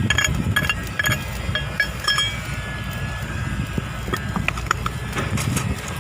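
Metal clinking and tapping, a quick run of ringing clicks in the first two seconds and a few more later, over a steady low mechanical rumble.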